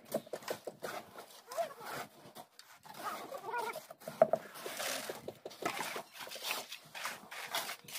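Wet concrete being worked by hand over a steel rebar mesh: a run of short, irregular rough scraping strokes and clicks as tools drag and push the mix.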